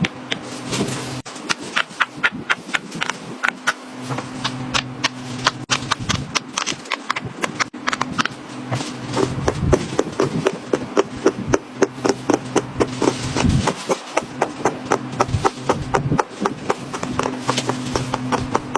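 Silicone pop-it fidget toys being pressed bubble by bubble with the fingers: a fast, even run of small pops, several a second, going on without a break.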